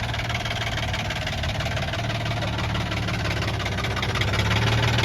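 Infiniti G35's 3.5-litre V6 idling with a steady rod knock, the sign of a worn connecting-rod bearing.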